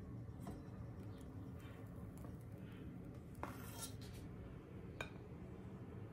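Metal spoon scooping chocolate mousse, clinking and scraping lightly against the steel bowl and plate: a few soft clicks, with a brief scrape about three and a half seconds in.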